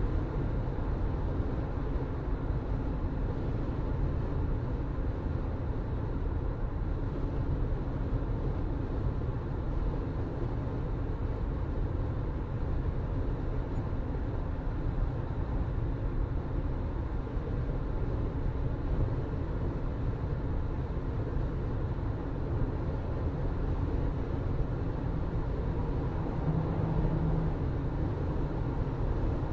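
Car driving at a steady pace: constant low engine hum and road rumble from the tyres, with no change in speed.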